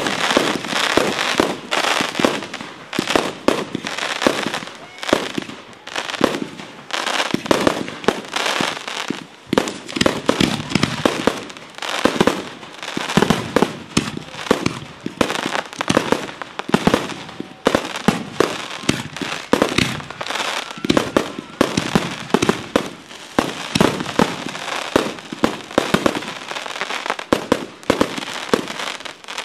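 Fireworks display: aerial shells bursting in quick succession, a dense string of sharp bangs several times a second with crackling between them.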